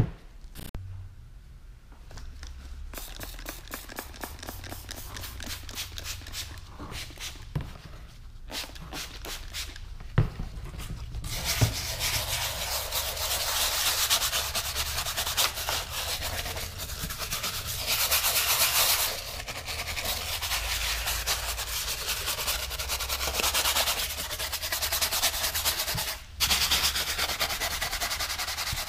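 Stiff-bristled scrub brush scrubbing a plastic interior trim panel wet with plastic and leather cleaner: rapid rasping strokes, light and broken at first, then steady and louder from about a third of the way in.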